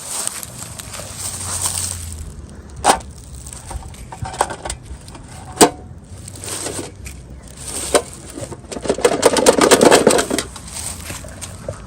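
Toy packaging being handled and opened: a few sharp clicks, then a dense burst of crinkling and crackling near the end.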